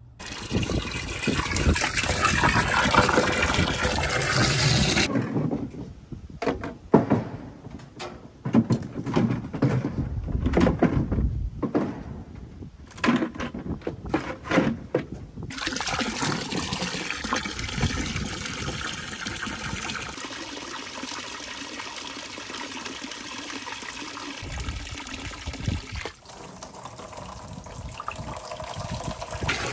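Water running from a garden hose, then, about five seconds in, a stretch of knocks and clatter of plastic buckets being handled. From about halfway on, the hose pours steadily into a plastic barrel, filling it.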